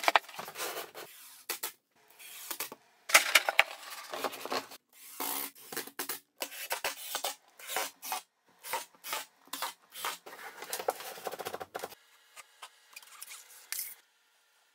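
A string of short, abruptly cut bursts of scraping and rubbing work noise: a hardboard sheet being handled and screws being driven into it with a cordless driver.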